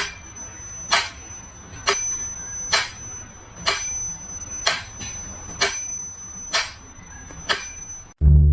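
A small bell struck nine times at an even pace of about once a second, each strike leaving a high ringing tone that sounds on until the next. It cuts off suddenly near the end.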